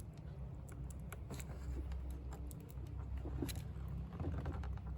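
Scattered small plastic clicks and rattles as fingers push down and pull back the red locking tabs on the ignition coil connectors of a 2014 Ford Focus engine, unlatching them.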